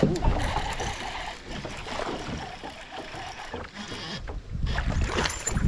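Wind and water noise aboard a small fishing boat on open water, uneven and gusty, with no clear motor note.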